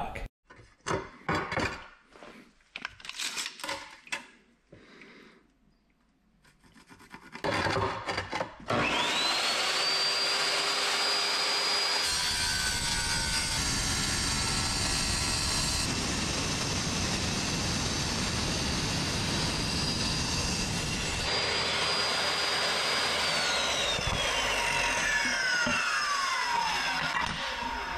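Sliding wet tile saw cutting wood-look porcelain tile: the motor spins up about a third of the way in, runs with a steady high whine and grinding through the tile, then is switched off near the end and winds down with a falling whine. Before it starts there are a few scattered light clicks and knocks.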